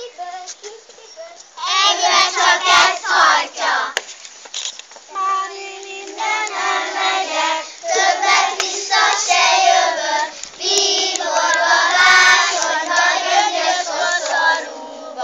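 A group of young children singing a song together in chorus, starting about a second and a half in, phrase by phrase with short breaks between lines.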